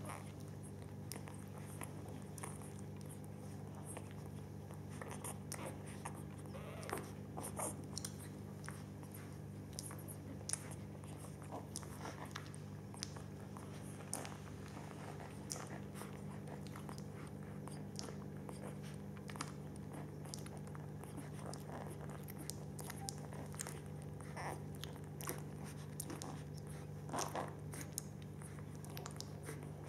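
Newborn Cane Corso puppies suckling at their mother's teats: a run of irregular wet clicks and smacks from their mouths, over a steady low hum.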